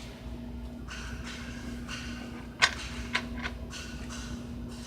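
A deck of playing cards being shuffled by hand: soft riffling rustles with a few sharp snaps of the cards a little past halfway.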